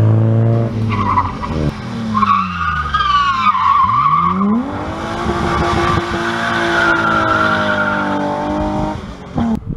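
BMW E30 rally car engine dropping in pitch as it brakes into a loose corner, then climbing and holding as it accelerates away, with tyres squealing and skidding through the corner.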